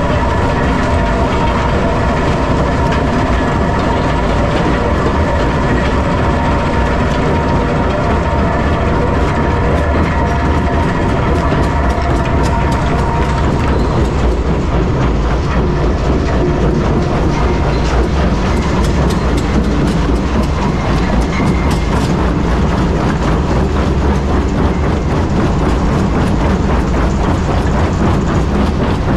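Metso 130 jaw crusher running under load, crushing blasted limestone: a steady low rumble with rock clattering and cracking in the jaws. The sharp cracks come thick and fast from about halfway in.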